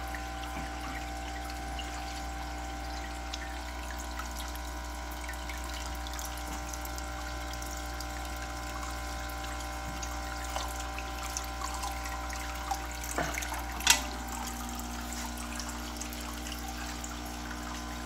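Aquarium water trickling and bubbling over a steady hum, as a glass mason jar is dipped into the tank and filled with tank water. A few light taps, then a sharp glass knock about 14 seconds in.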